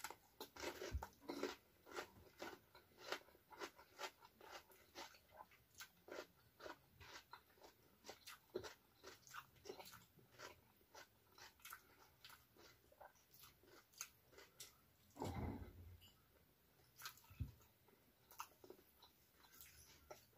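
A person chewing a mouthful of rice and fried tofu close to the microphone: soft, clicky mouth sounds, several a second, with one louder, deeper thump about fifteen seconds in.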